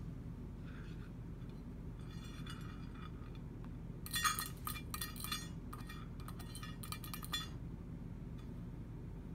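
Small stainless steel food bowl clinking and scraping as it is handled, with a run of sharp metallic clinks from about four seconds in until past seven seconds, loudest at the start, and fainter ringing taps a little before.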